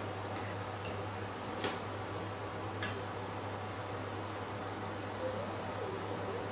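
A pot of herbal kashayam boiling on a stove: a steady hiss over a low hum, with a few sharp clicks in the first three seconds.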